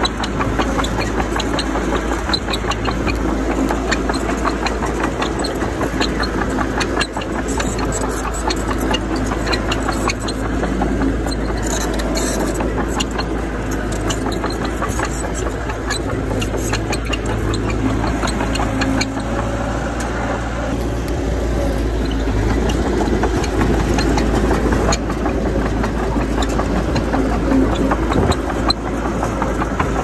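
Heavy diesel engines of a bulldozer and dump trucks running steadily, with scattered short clicks.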